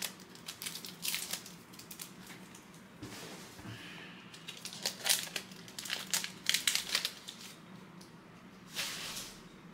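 Wrapper of a trading card pack crinkling in bursts as it is torn open and handled, with the cards inside sliding against it.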